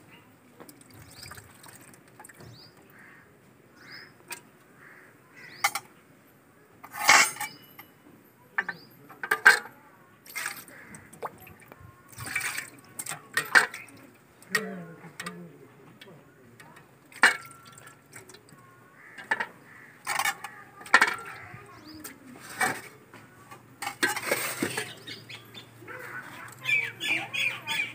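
Steel bowls, plates and utensils clinking and knocking together, with splashes of water as vegetables are washed by hand in a steel basin.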